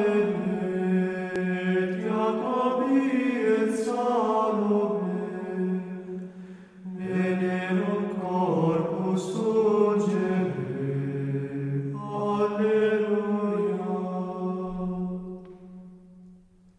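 A man's voice singing a slow Latin plainchant in long, held notes, with a short pause about seven seconds in. The singing fades away near the end.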